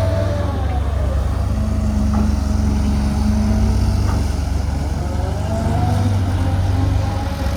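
Caterpillar 320 GC excavator's diesel engine running hard with a heavy low rumble, its pitch sagging and rising again a couple of times.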